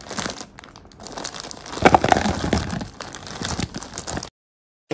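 Clear plastic bag crinkling as it is tipped and handled over a plastic storage container to empty out dried fruit, loudest about two seconds in. The rustling stops abruptly near the end.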